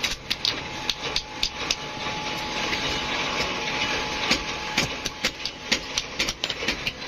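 Light hammer blows on metal rivets set through a sickle's wooden handle: irregular sharp knocks, a few a second, thinning out in the middle, over a steady background hiss.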